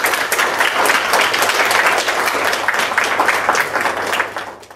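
Audience applauding: many people clapping together in a dense, steady patter that dies away and cuts off near the end.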